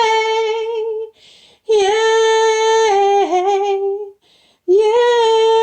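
A woman singing unaccompanied, holding three long notes on 'yeah' with a quick breath between each.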